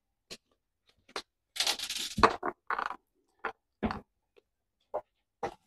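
Glass jars of home-canned cucumbers being handled: a series of short knocks and clinks, with a brief scrape about a second and a half in.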